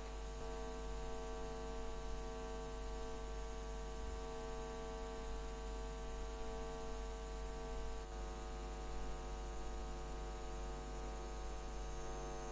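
Steady electrical hum and buzz: mains hum on the recording, with no other sound.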